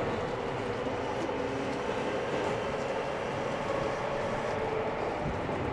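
Interior running noise of a Seibu 6000 series electric train car in a subway tunnel: a steady wheel-on-rail rumble with a faint steady tone from the traction equipment over it.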